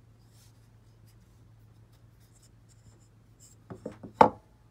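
A small grooved wooden block handled over a wooden workbench: faint rubbing and light clicks, then about four quick wooden knocks near the end, the last one loudest, as the block meets the bench top.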